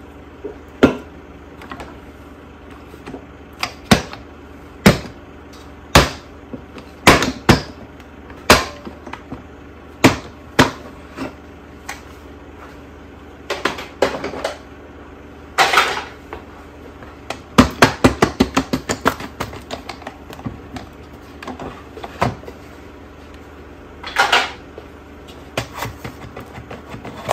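Irwin Quick-Grip one-handed bar clamps being released from a wooden press mold: a string of sharp clicks and clacks as the release triggers snap, the bars slide free and the clamps are set down on the bench, with a quick rattle of clicks partway through. Near the end a short scrape as the halves of the mold are pulled apart.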